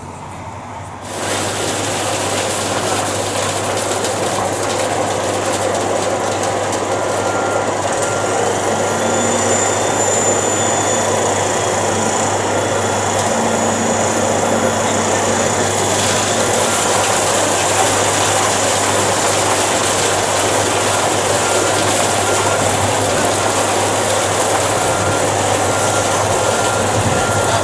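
Steady loud machine noise, a hiss with faint steady whines through it, cutting in abruptly about a second in and holding unchanged.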